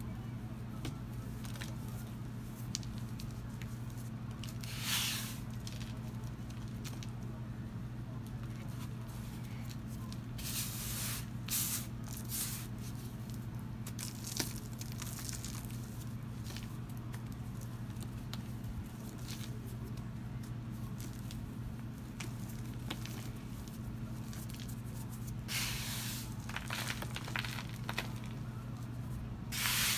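Hands crumbling and squeezing powdery balls into loose powder: soft crunching and hissing rustles that come in bursts, the strongest about five seconds in, around eleven to twelve seconds in, and near the end. A steady low hum runs underneath.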